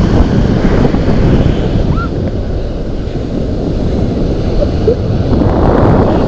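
Wind buffeting the phone's microphone over sea surf washing around in the shallows. The rumble eases off a little around the middle and builds again near the end.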